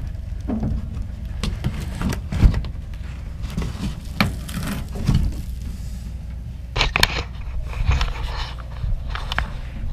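Steel motorcycle hitch-rack parts being lifted out of their packaging: scattered knocks and clunks, with a stretch of scraping and rustling about seven seconds in, over a low steady hum.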